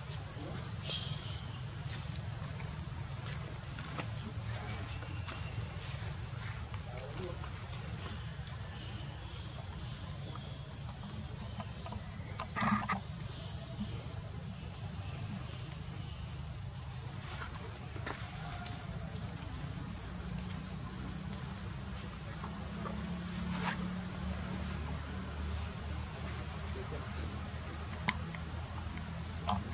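Steady, high-pitched chorus of forest insects, two unbroken tones held throughout, over a low rumble, with one brief knock about 13 seconds in.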